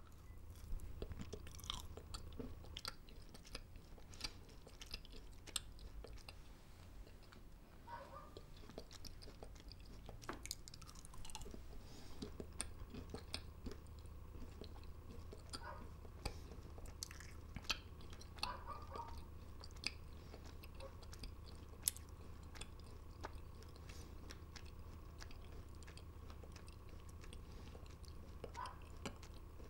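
Close, faint chewing of dried candied wild pear (dolbae jeonggwa) slices: irregular small crunches and mouth clicks over a low steady hum.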